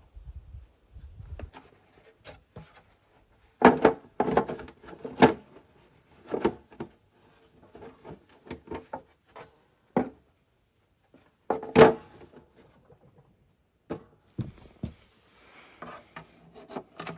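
Hand work on small parts: irregular clicks, knocks and clunks of tools and hardware being handled, with a quick run of louder knocks about four seconds in and another near the middle.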